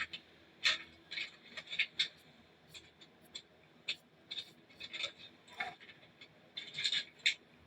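Irregular small clicks, scrapes and rattles of cat treats being handed out, a couple of sharp ticks a second with short pauses and a brief cluster near the end.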